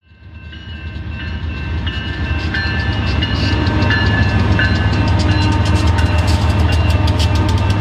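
BNSF diesel freight train rolling through a grade crossing: a deep, steady rumble with high ringing tones above it, fading in from silence over the first few seconds. Rapid clicks grow denser near the end.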